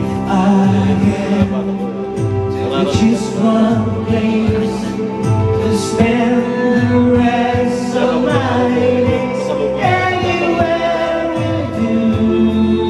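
Men singing karaoke into handheld microphones over a pop-ballad backing track with a steady beat.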